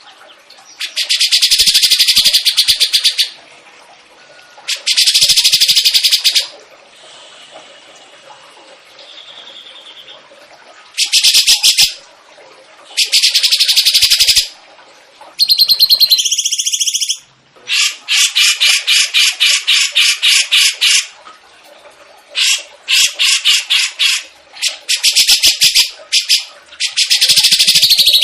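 Songbird singing loud, very fast rattling trills in bursts of one to two seconds, repeated after short pauses, with faint softer notes between the bursts and a brief jumbled twitter about halfway through.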